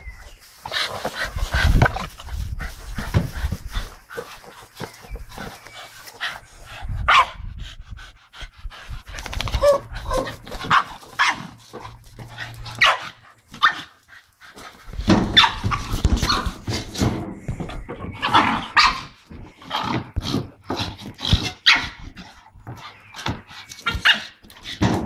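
Two blue Staffordshire bull terriers barking as they play rough over a ball, in many short, irregular bursts with a brief lull about two-thirds of the way through.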